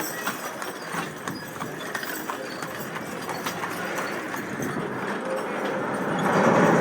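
Hooves of the horse team pulling a stagecoach, clip-clopping along the road. A louder steady noise comes in near the end.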